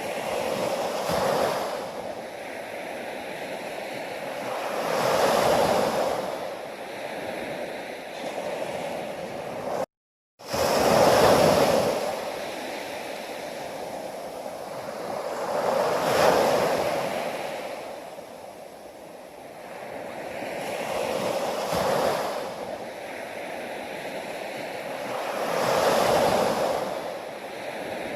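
Ocean waves breaking and washing on a shore, a surge swelling and fading about every five seconds. The sound cuts out completely for about half a second roughly a third of the way through, then resumes.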